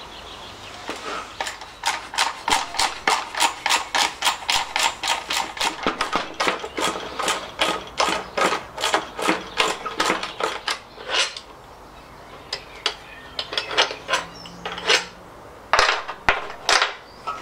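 A run of sharp knocks on an old alternator's metal housing, about two to three a second, thinning about eleven seconds in to a few scattered knocks.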